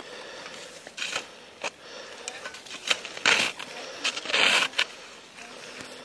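Small hand shovel digging into settled, packed snow, scraping and crunching in irregular strokes. The loudest comes about three seconds in, and a longer scrape follows around four and a half seconds.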